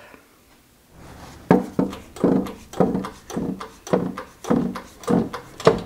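Shop press being pumped by hand to push a worn ball bearing out of a cast-iron clutch pulley. It gives a steady run of clunks and creaks, about two strokes a second, starting about a second in.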